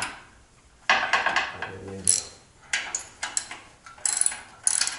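Short bursts of metal clicking and scraping as a slip-on muffler and its C-clamp are worked onto a motorcycle's exhaust pipe.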